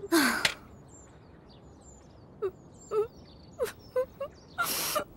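Scattered short bird chirps in an outdoor background. A brief rush of noise comes right at the start, and a longer breathy rush comes near the end.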